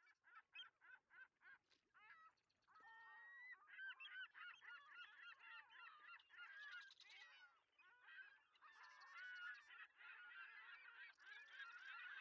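A faint, busy chorus of many overlapping bird calls. The first two seconds hold a quick run of short, separate calls, and after that the calls run together thickly.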